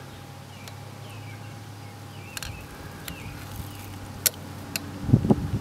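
Outdoor background: a steady low hum with a few faint chirps and sharp clicks, then wind buffeting the microphone about five seconds in.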